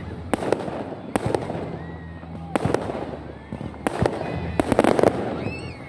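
Fireworks going off: a series of sharp cracks and pops, mostly in pairs, with a quick run of crackling bangs between about four and a half and five seconds in.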